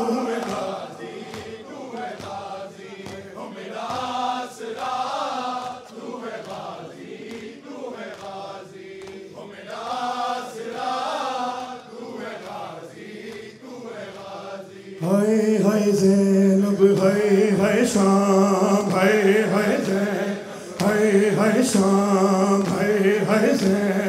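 Men chanting a noha, a Shia lament, together without instruments. About fifteen seconds in, the lead reciter's amplified voice comes in louder, holding long notes.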